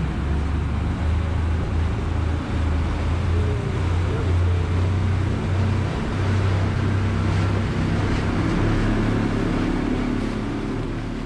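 Twin outboard motors driving a fishing boat at speed: a steady low engine drone under the rush of the wake, easing off near the end.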